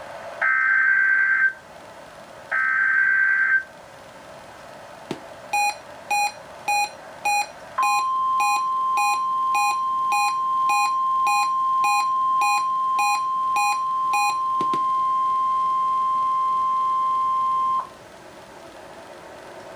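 NOAA Weather Radio test broadcast. Two bursts of the SAME digital header, a harsh data screech, come in the first few seconds. Then short electronic beeps from the receiver begin about five seconds in, under two a second, and about eight seconds in the steady 1050 Hz warning alarm tone starts and holds for some ten seconds. The beeps stop a few seconds before the tone cuts off, leaving radio hiss.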